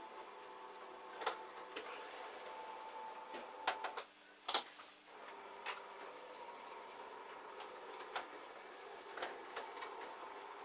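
O gauge model locomotive's electric motor whirring steadily as it pushes wagons slowly along the track, with scattered clicks of wheels over rail joints and points. About four seconds in, the motor cuts out for about a second between two sharp clicks, then starts again.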